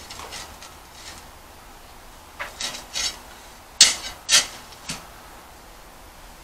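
Handling noises: a run of short scrapes and clinks in the middle, the loudest two close together, as a glass bottle is picked up.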